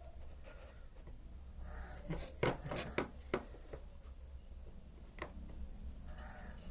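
A handful of short, sharp clicks and taps from handling small parts or tools, bunched about two to three and a half seconds in with one more a little past five seconds, over a faint low steady hum.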